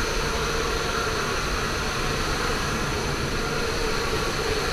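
Steady rush of wind and aircraft engine noise in a jump plane's cabin with the side door open, an even roar with a constant engine hum underneath.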